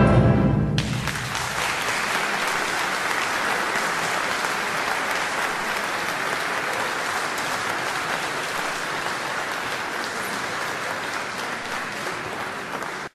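Crowd applauding steadily, slowly fading, then cut off abruptly at the end. The tail of orchestral music stops about a second in.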